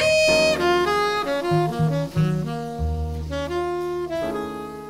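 Closing background music: a melody of held notes over a low bass line, getting quieter toward the end.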